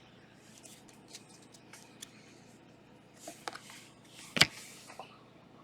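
A trading card pack being opened and its cards handled: soft crinkling of the wrapper and cards sliding, with scattered small clicks and one sharp tap about four and a half seconds in.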